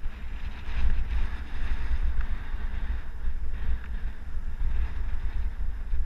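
Wind buffeting the microphone of a mountain bike's action camera as the bike rolls fast down a dirt singletrack, a deep rumble with a hiss that rises and falls.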